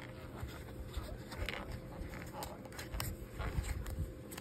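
Handling noise of a card being lifted out of a lined presentation box: soft scraping and rustling, with a few light taps and clicks, the sharpest about three seconds in.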